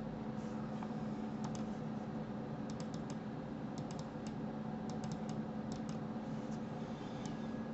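Computer keyboard keys and mouse buttons clicking in small scattered clusters as Blender shortcuts are used, over a steady low hum.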